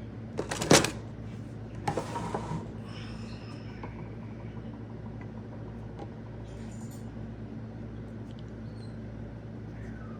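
Scissors being swapped on a craft table: two brief clattering knocks in the first couple of seconds, then only a steady low hum with a few faint ticks.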